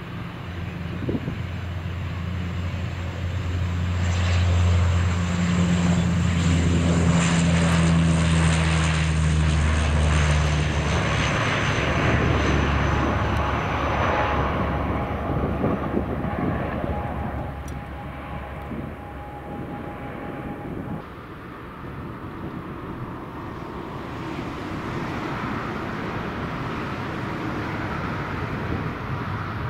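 ATR twin-turboprop airliner at takeoff power, its propeller drone loudest as it passes and dropping in pitch as it goes by, then fading. After a cut about two-thirds of the way in, a Boeing 777's jet engines run steadily at low power.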